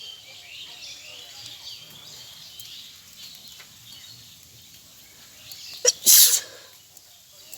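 A woman sneezes once, loudly, about six seconds in: a brief sharp catch of breath, then the explosive sneeze. Birds chirp faintly in the background.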